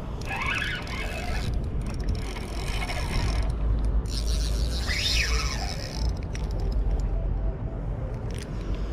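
Spinning reel being cranked, its gears whirring and clicking in spells, as a hooked king salmon is reeled in. A steady low wind rumble runs on the microphone underneath.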